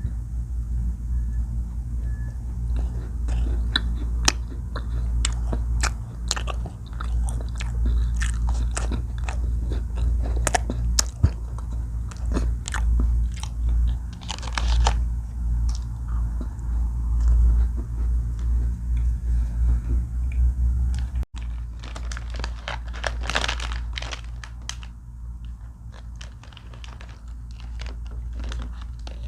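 Close-up crunchy bites and chewing of an Ülker Halley chocolate-coated biscuit sandwich, with many sharp crackling snaps as it is bitten and chewed.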